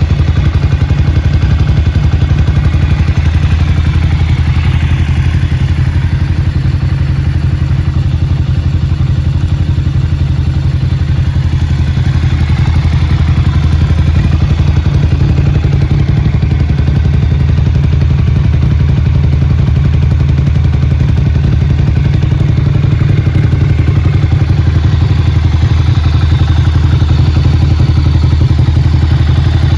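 Ducati Monster 695's air-cooled L-twin running steadily at a constant low speed through a GPR exhaust with the dB killer removed, loud and unmuffled.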